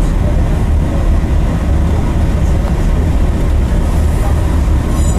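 Train running noise heard from inside a passenger carriage: a steady, loud low rumble with an even hiss above it.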